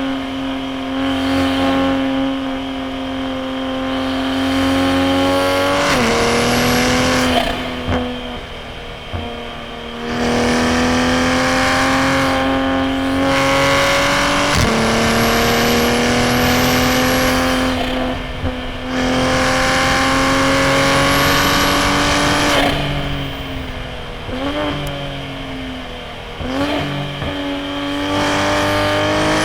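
Toyota GR Supra A90's turbocharged B58 inline-six through a straight-piped titanium single-exit exhaust, pulling hard: the engine note climbs slowly and drops sharply at each gear change, about half a dozen times. Between pulls it eases off in a few quieter stretches, with short quick rev blips on the way back up.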